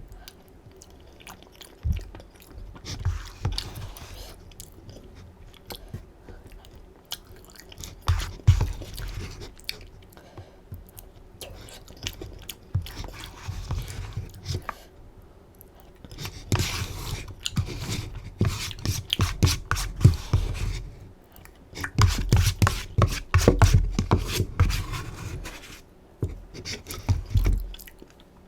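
Close-miked chewing of rosé buldak flat glass noodles: wet smacking clicks that come in bursts, busiest and loudest in the last dozen seconds.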